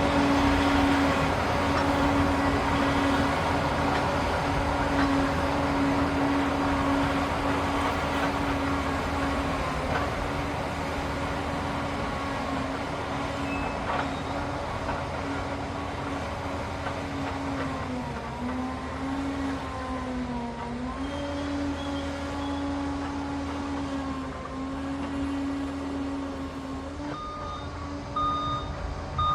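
Liebherr PR 746 crawler dozer's diesel engine and drive running under work, a steady hum that sags in pitch briefly past the middle and slowly fades. Near the end the machine's reversing alarm starts beeping at about one beep a second.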